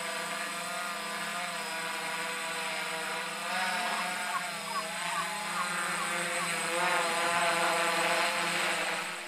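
Tarot FY680 hexacopter's six electric motors and propellers whining steadily while it hovers, the pitch wavering as the motors adjust. The whine grows louder about halfway through and again near the end.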